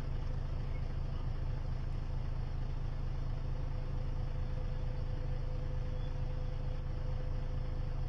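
Steady low rumble of a car driving, heard from inside the cabin, with a faint steady hum above it.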